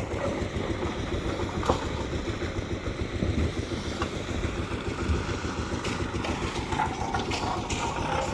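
An engine running steadily, with a few short knocks over it.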